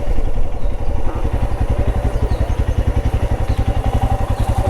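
A vehicle engine idling with a steady, even low throb.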